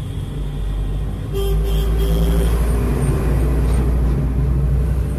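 Road traffic: a motor vehicle's engine rumble, growing louder about a second and a half in as it passes.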